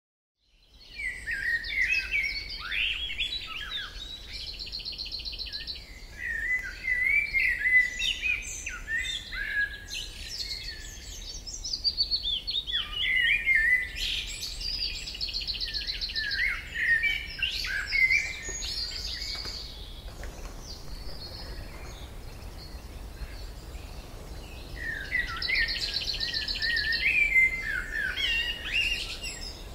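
Several songbirds singing: a busy mix of short chirps and whistled, gliding phrases, with a fast buzzy trill about four seconds in, again midway, and near the end.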